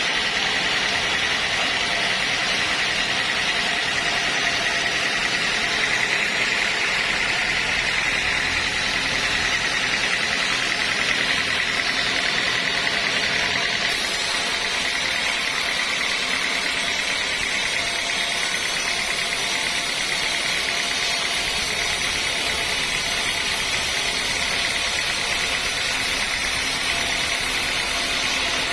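Sawmill machinery running steadily, a continuous engine hum with a constant high-pitched whine and no change in load.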